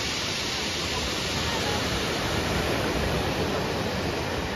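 Steady rush of sea surf breaking and washing along a beach.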